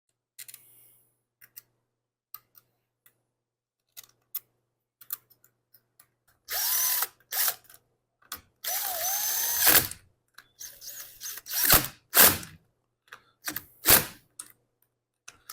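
Cordless drill-driver run in short bursts, its motor pitch rising and falling, after a stretch of light clicks and taps of small parts being handled. There are two longer runs in the middle and several shorter ones near the end.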